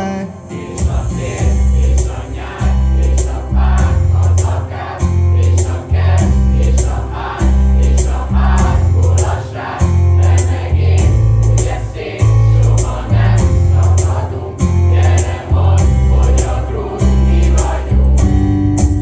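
A large group of voices singing together over a backing track with a steady beat and a strong bass line.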